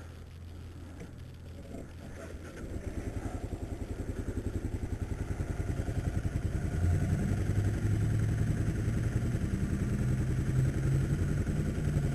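Kawasaki KLR single-cylinder motorcycle engine catching about two and a half seconds in, then running with a rapid, even pulse that grows a little louder from about seven seconds in.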